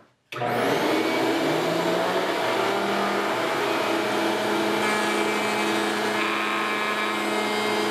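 Table-mounted router spinning a bearing-guided rabbeting bit at full speed while a ring workpiece is fed around it, cutting a shallow first-pass rabbet. The steady high-pitched motor whine with cutting noise starts abruptly just after the beginning and holds an even level.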